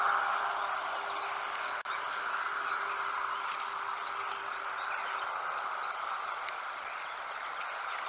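Small songbirds chirping and twittering in short, quick notes over a steady outdoor noise haze and a faint steady hum. The level dips briefly about two seconds in.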